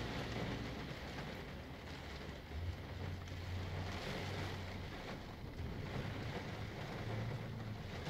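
Rain pattering on a car with a low hum underneath, heard inside the car while the squelched airband receiver stays silent between transmissions.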